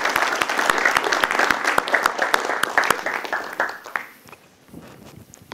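Audience applauding, many hands clapping together; the applause dies away about four seconds in.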